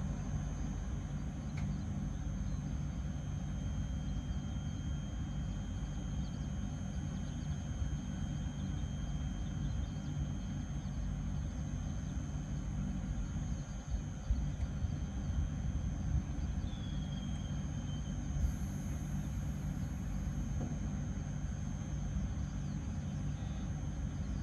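JR 721 series electric train standing at the platform, its equipment giving a steady low hum with a faint thin high whine over it. About two-thirds of the way through there is a short falling chirp.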